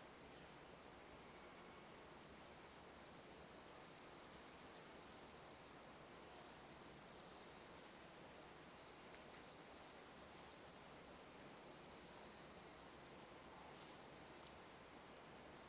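Near silence: faint room tone with a series of faint, high chirps that fall in pitch, about one or two a second.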